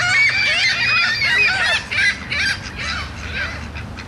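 A flock of waterbirds calling over one another: many short squawks that rise and fall in pitch, dense at first and thinning toward the end.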